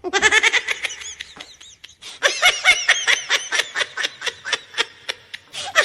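High-pitched laughter in rapid bursts, with a short pause about a third of the way in.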